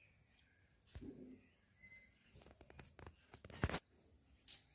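Faint scrapes and small clicks of a knife peeling and cutting a potato by hand, with one sharper click about three and a half seconds in.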